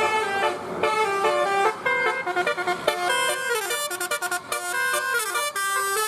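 Bus telolet horn (a Basuri multi-tone horn) playing a tune of changing notes, breaking into quick stuttering pulses of the notes from about halfway through.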